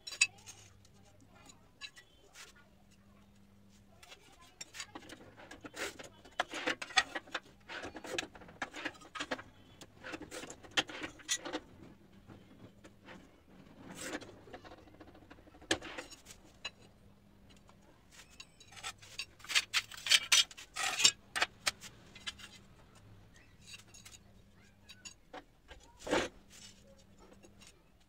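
Ceramic tiles clinking and clattering on a concrete floor while being cut on a manual rail tile cutter: scraping scoring strokes, sharp snaps and knocks in scattered bursts. The bursts are loudest about twenty seconds in, with a single sharp knock near the end.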